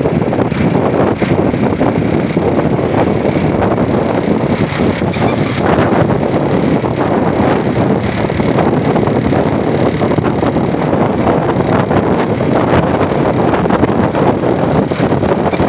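Tour bus diesel engine running steadily, with wind rumbling on the microphone.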